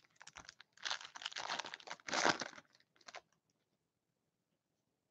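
Trading cards and foil pack wrappers rustling and crinkling as they are handled, a dense run of rustling over the first two and a half seconds, then a couple of light clicks about three seconds in.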